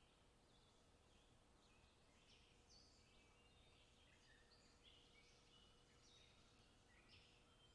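Faint chirping of small birds: many short, high calls overlapping, sparse at first and busier after a second or two, over a low hiss and a faint steady hum.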